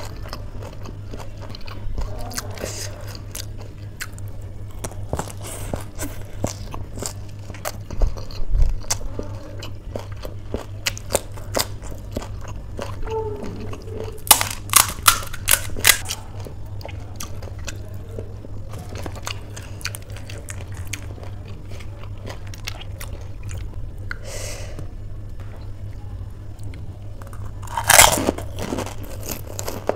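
Close-miked chewing and crunching of crisp fried street snacks: chatpatey and panipuri shells. There is a burst of sharp crackles about halfway through as a puri shell is handled and broken, and a loud crunchy bite near the end, over a steady low hum.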